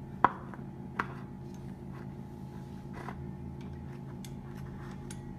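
Sharp clicks and knocks of a greased one-piece BMX seat and seat post being handled and pushed down into the frame's seat tube: two clear clicks about a second apart near the start, then a fainter knock and a few light ticks, over a steady low hum.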